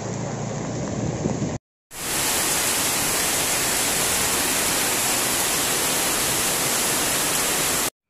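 Heavy rain pouring down in a steady, dense hiss, with a low hum beneath it at first. About a second and a half in the audio cuts out briefly, and the downpour comes back louder and brighter.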